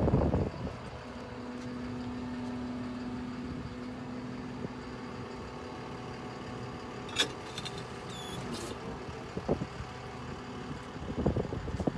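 A 2006 Ford F650 service truck's engine idling steadily, with a stronger held hum from about one to four seconds in. A sharp click comes about seven seconds in, and a short high squeak follows a second later.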